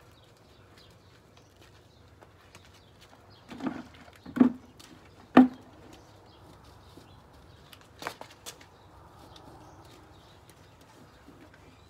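Hand-washing a car wheel and tyre with a wet sponge and plastic bucket. Three loud short thumps come about four to five and a half seconds in, then two lighter knocks a little later, over a faint quiet background.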